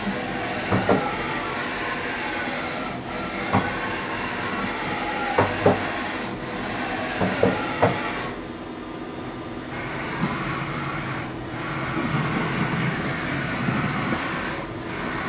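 Hardinge 710 XV vertical machining center's table traversing on its axes under power: a servo and ball-screw whine that sweeps up and down in pitch as the axis speeds up and slows, with several sharp knocks in the first eight seconds. After a quieter moment it runs on with a rougher, steadier sound.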